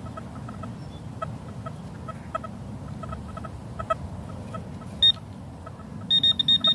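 A metal detector beeping on a shallow target. There is a single high beep about five seconds in, then a quick run of rapid high beeps near the end as it closes on the target. Faint short pips sound irregularly throughout.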